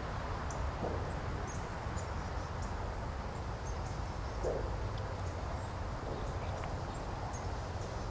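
Outdoor ambience: a steady background rush with a few faint, short, high bird chirps scattered through it.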